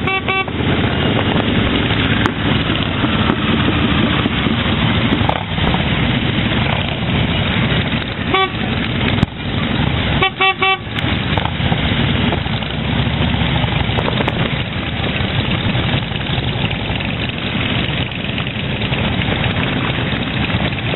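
Motorcycles running at road speed in a large group, a steady din of engines and road noise. Short horn toots sound just after the start, once at about eight seconds, and in a quick run of several toots at about ten and a half seconds.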